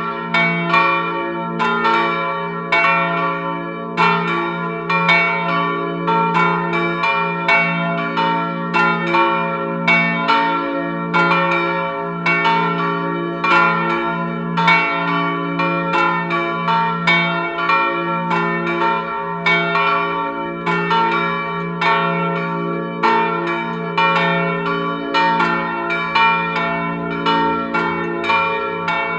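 Three bronze church bells cast in 1988 by the Felczyński foundry, tuned to F, B-flat and D (about 850, 450 and 250 kg), swinging and ringing together. Their strokes overlap in a steady, unbroken peal, each strike ringing on under the next.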